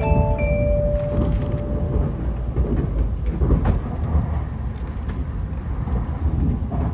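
Shinkansen train rumbling steadily, with a few short chime-like tones in the first second or two.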